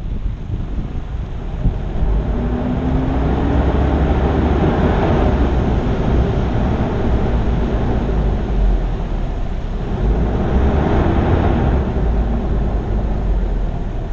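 A 4x4 driving off-road on a rough riverbed and gravel track: a steady rumble of engine and tyres, with wind buffeting the hood-mounted microphone.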